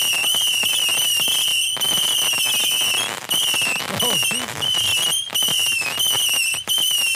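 Ground fountain firework with whistles going off: a loud, warbling high-pitched whistle repeats in stretches of about a second with short breaks, over crackling sparks.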